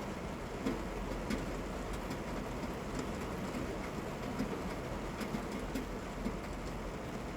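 Steady rain falling, an even hiss with a low rumble and many sharp drip ticks scattered through it.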